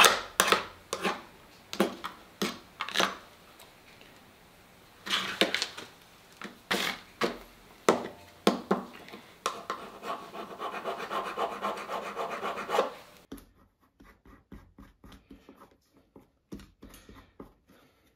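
Hand tool scraping a small metal fuel-line fitting taken off the old fuel pump, cleaning it before it goes onto the new pump. The scraping comes in repeated short strokes, about two a second at first, then as a quicker, steadier run of scrubbing. It stops suddenly about two-thirds of the way through, leaving only faint clicks as the fitting is handled.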